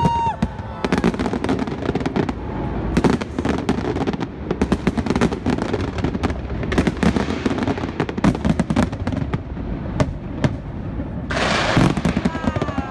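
Fireworks display going off in a dense, continuous run of bangs and crackles, several a second, with a thicker hissing crackle about a second before the end.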